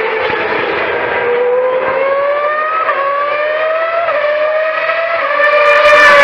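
Historic formula racing car's engine at high revs, accelerating hard along the track and shifting up several times, its pitch climbing and then dropping at each gear change. It gets loudest near the end as it comes close.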